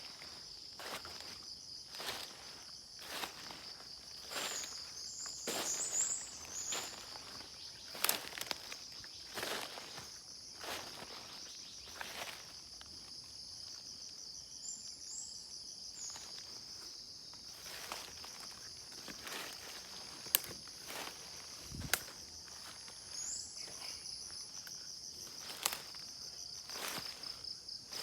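Insects trilling steadily in a high, continuous pulsing chorus, with footsteps about once a second walking through it. A few brief high chirps come through now and then.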